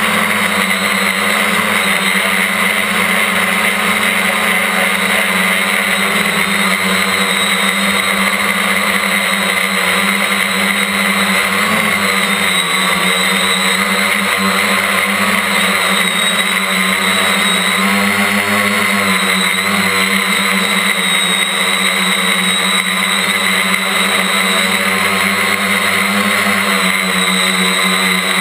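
Quadcopter's electric motors and propellers droning steadily, close up from a camera mounted on the craft. The pitch wavers slightly now and then as the motors change speed.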